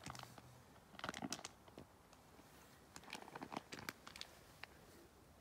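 Nylon shell of a down sleeping bag crinkling and crunching as it is handled, in two short bouts of faint crackles: one about a second in and one around three to four seconds in.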